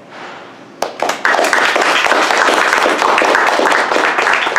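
Audience applauding. After a first clap about a second in, many hands clap together, full and steady.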